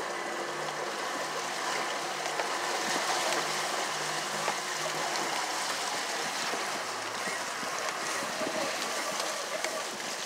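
Water rushing and splashing along the hull of a 22 ft Cobia boat under way, with wind, over the low steady hum of its 150 hp Yamaha outboard, which drops lower and fainter about halfway through.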